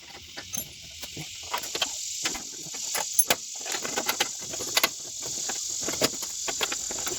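Electric welder arc crackling and sputtering as the steel patch pieces of a car's core support are tack-welded together.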